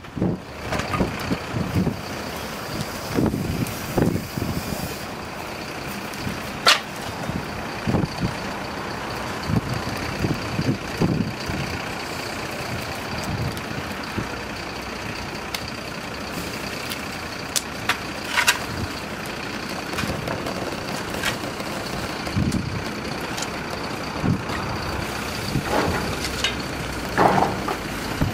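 Open wood fire burning with a steady rushing noise and scattered crackles and pops, with a sharp snap about seven seconds in and a couple more just past halfway.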